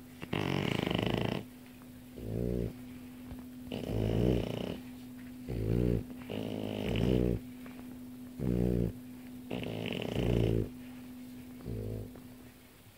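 A sleeping pet snoring in a steady rhythm, a longer rasping snore alternating with a shorter one, four breaths about three seconds apart. A faint steady hum runs underneath.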